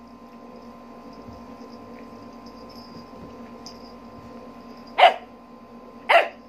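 Small puppy barking twice, short sharp barks about a second apart near the end, after a few seconds of faint steady background hum. The barks are typical of a puppy pestering its owner to play.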